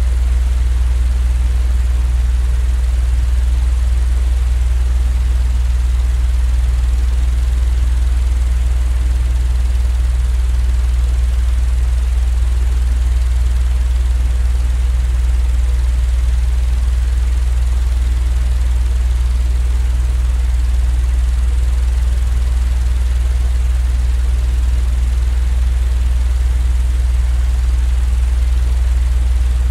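Continuous low rumbling noise that never changes, heaviest in the bass: a steady white-noise sleep-aid drone.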